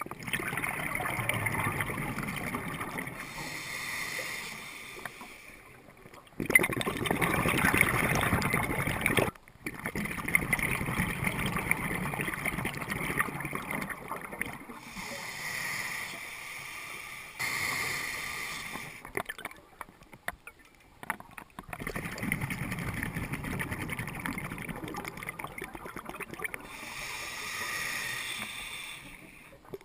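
Water sloshing and splashing around a small boat, in several stretches broken by sudden cuts.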